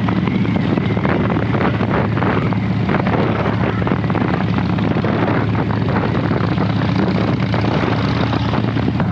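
Harley-Davidson Dyna Wide Glide V-twin running steadily while riding along, with wind noise on the microphone. It is a bit louder than usual, with the engine sound coming from the front rather than the exhaust at the back, because a broken exhaust stud leaves the front exhaust loose and leaking at the cylinder head.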